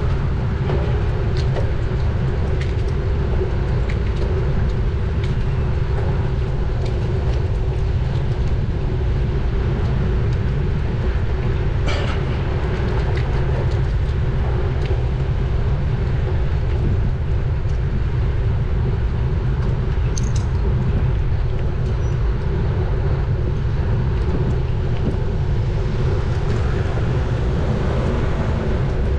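Wind rushing over a bike-mounted camera's microphone while riding, together with the road bike's tyres rolling on the road: an even, loud low rumble with small clicks and knocks now and then, one sharper knock about twelve seconds in.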